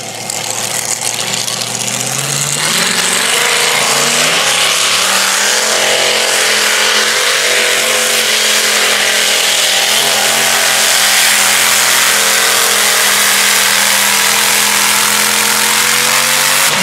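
Supercharged engine of a modified-class pulling tractor at full throttle, dragging the pulling sled. It revs up over the first few seconds, then runs flat out with the pitch creeping slowly higher, and breaks off suddenly near the end.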